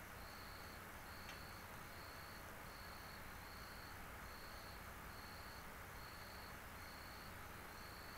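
Faint cricket chirping: a high, even chirp repeating a little more than once a second over a steady low hiss, with one soft click about a second in.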